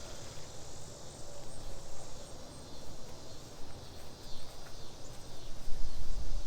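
Wind buffeting the microphone in low, uneven gusts, loudest near the end, over faint insect chirping.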